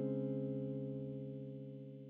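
Background music ending: a single held chord dying away slowly.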